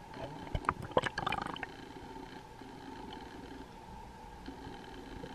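Water sloshing and bubbling, heard muffled through a sealed underwater camera housing as it dips below the surface: a burst of sharp clicks and splashes in the first two seconds, then a steady muffled underwater noise.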